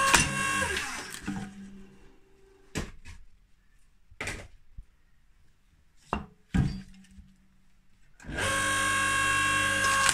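Log splitter's motor running with a steady hum as a log is forced onto the four-way wedge, then winding down with falling pitch about a second in. A few sharp wooden knocks follow as split pieces and a fresh log go into the steel trough, and the motor starts up again about eight seconds in.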